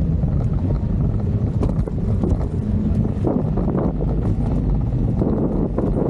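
Wind rumbling steadily on the microphone of a camera carried on a moving electric scooter.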